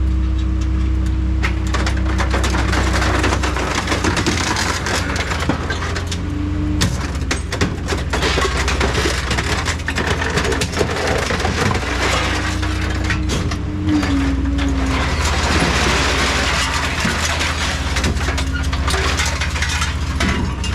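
Hydraulic scrap-processing machine running with a steady low hum and a held whine that shifts in pitch several times, while scrap metal is crushed and sheared with continuous crunching, cracking and snapping.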